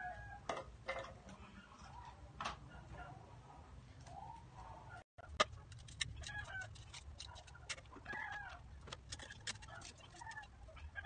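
Chickens clucking now and then, with sharp clicks and knocks of empty wooden hive frames being handled and fitted with rubber bands. The sound drops out for an instant about halfway.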